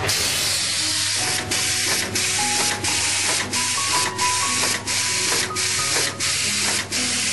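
Automatic through-hole component insertion machine running: a steady hiss broken by a brief dip about every two-thirds of a second, a regular machine cycle.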